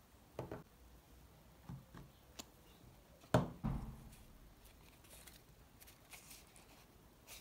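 Cardboard and paper packaging of an iPhone 13 being handled on a wooden table. There are a few light knocks, the loudest two close together about three and a half seconds in, then faint rustling and scraping as the card insert is opened.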